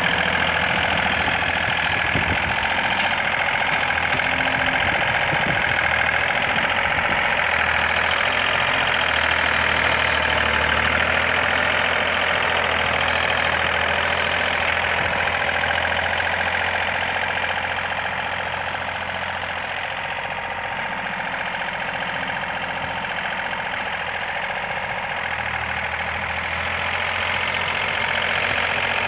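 Iseki Sial 21 compact tractor's diesel engine running steadily as the tractor drives and pushes snow with its front loader bucket, with a steady high-pitched whine over the engine note. It gets somewhat quieter for several seconds past the middle, then louder again near the end.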